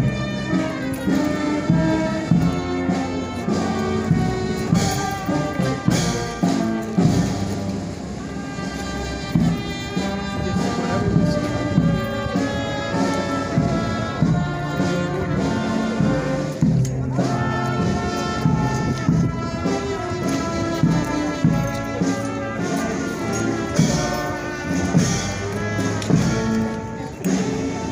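Brass band playing, with trumpets and trombones holding steady notes over a low bass line.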